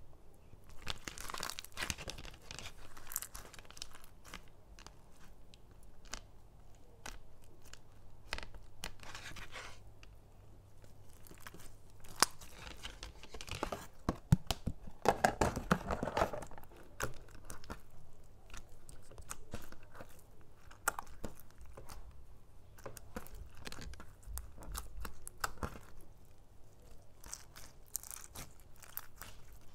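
Clear slime packed with small foam beads being stretched, squeezed and kneaded by hand, crackling and crunching as the beads rub and press together. The crackling grows louder and denser for a few seconds about halfway through.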